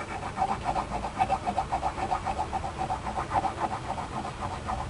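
Needle file rasping back and forth on a steel brake-caliper guide pin in quick rhythmic strokes, about five a second, as the pin is filed down by hundredths of a millimetre to cure caliper knock.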